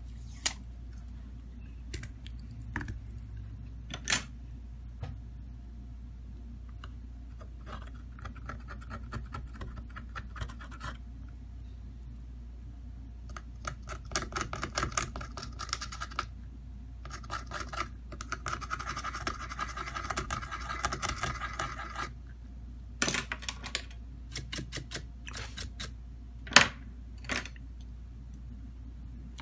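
A hand tool scraping across a smartphone's middle frame in quick, repeated strokes through the middle of the stretch. Sharp clicks and taps of the tool and parts on a rubber work mat come before and after the scraping, the loudest near the end.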